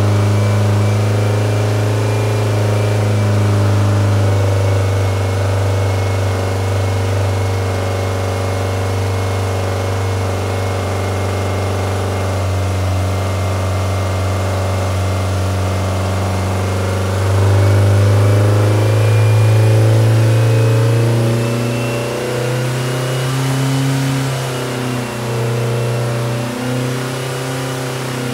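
Freshly built 1914cc Volkswagen air-cooled flat-four with dual Weber 44 IDF carburetors running on a test stand, holding a steady speed for most of the time. About two-thirds of the way through it gets louder, and near the end the engine speed rises and wavers.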